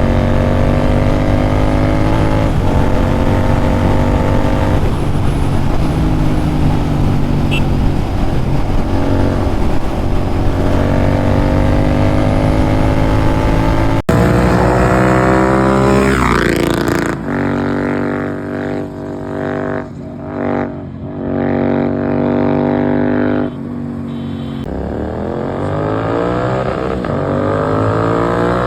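Royal Enfield Continental GT 650's parallel-twin engine running through a Red Rooster aftermarket exhaust. In the first half the bike rides under load, its note climbing steadily. After an abrupt cut halfway, a separate recording has the note rising and falling with the throttle, with several brief throttle-off drops.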